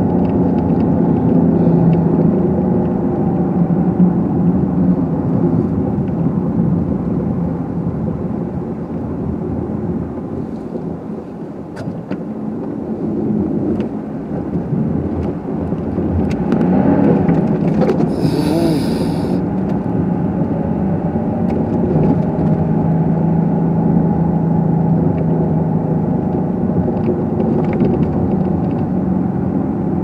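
Car engine and tyre noise heard from inside the cabin while driving slowly over snow-packed streets, a steady low hum that dips about ten seconds in and picks up again a few seconds later. A brief hiss comes about eighteen seconds in.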